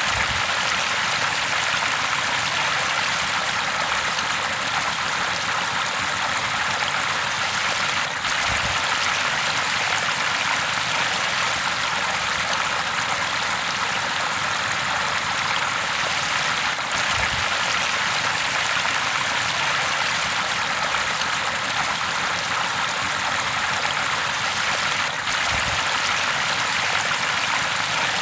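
River water flowing steadily, a continuous rushing and trickling, with a faint low bump and brief dip roughly every eight or nine seconds.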